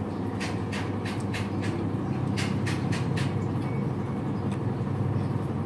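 Someone chewing crispy pork belly crackling: a run of sharp, crackly crunches through the first three seconds. Under it is a steady low mechanical rumble.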